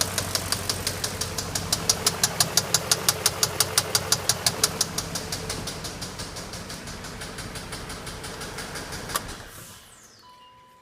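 BMW X5 engine running with a regular knock at about four knocks a second, of a cause the owner doesn't know. About nine seconds in the engine is switched off and winds down, and a faint steady tone starts near the end.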